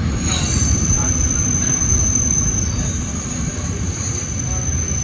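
Old passenger carriages of a steam-hauled train rolling slowly out of a station: a steady low rumble from the running gear, with a high, thin squeal setting in just after the start.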